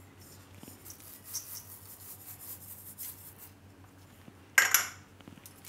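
Sesame seeds pattering faintly as they are sprinkled over flour and spices in a steel bowl, then a short, louder clatter about four and a half seconds in.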